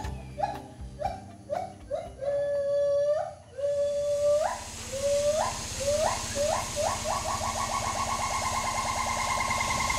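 A whistled animal call: a string of clear notes, each sliding upward, about two a second, then quickening into a fast, even trill.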